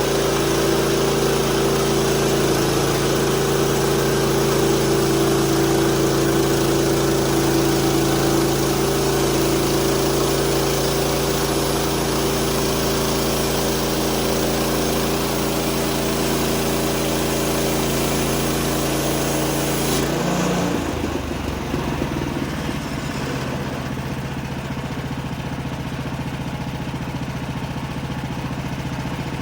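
Bandsaw sawmill's gas engine running under load while the blade cuts through a yellow poplar log. About twenty seconds in, the cutting noise drops away and the engine keeps running more quietly.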